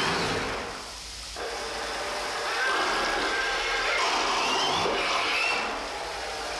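Twin electric motors of an RC boat driving 3D-printed screw propellers in a bathtub, whining over churning water at higher throttle. The sound dips about a second in, then the whine climbs in pitch about four seconds in and falls back.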